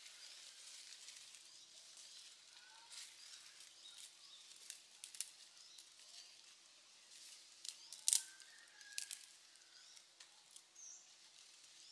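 Small fire of dry twigs and leaves catching, with scattered crackles and twig snaps as it is fed by hand; the sharpest snap comes about eight seconds in. Faint bird chirps and a steady low hum underneath.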